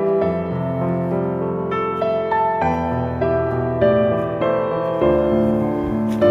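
Background music: a gentle instrumental piece led by piano, with notes struck about twice a second over sustained low bass notes.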